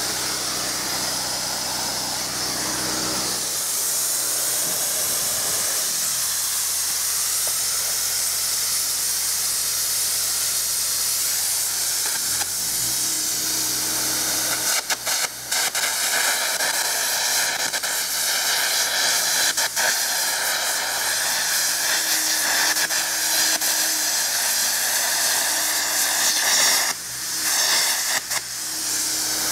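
A Lincoln Vantage 400 engine-drive welder runs for the first few seconds. Then comes the loud steady hiss of air carbon arc gouging: a compressed-air jet blows molten steel out of a crack in an excavator bucket. From about halfway through, the hiss is broken by sharp arc crackles.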